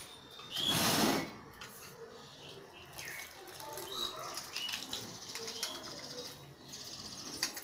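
Hands washing fish pieces in a metal bowl of water, with a short loud swish about a second in. Birds chirp faintly around.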